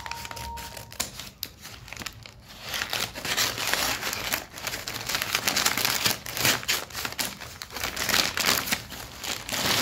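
Scissors cutting along the edge of a stiff kraft-paper mailer, and the paper crinkling and rustling as it is handled and pulled open. The crackling comes in many irregular sharp bits and gets busier after the first few seconds.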